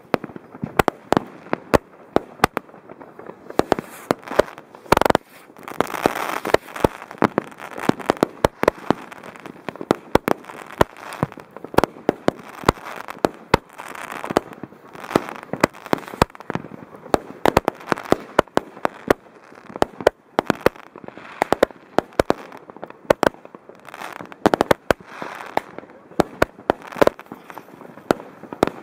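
Linked firework batteries (cakes) firing at close range: a dense, unbroken run of sharp bangs, several a second, with crackling and hissing between them.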